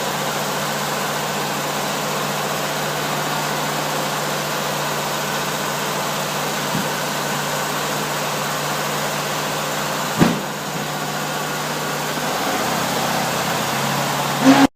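Volkswagen with a swing-axle transmission running steadily, a steady hum with a constant pitch coming through the drivetrain; the owner calls it a weird noise from the transmission. A single sharp knock about ten seconds in.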